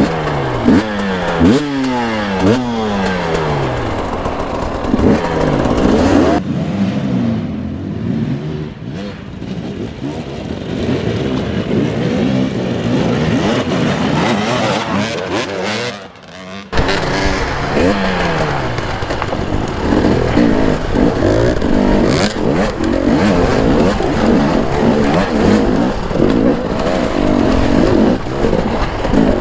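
Two-stroke enduro motorcycle engines revving hard at the start of a race, the pitch climbing and dropping again and again with throttle and gear changes. The sound turns duller for about ten seconds in the middle, breaks off briefly, then returns to hard revving.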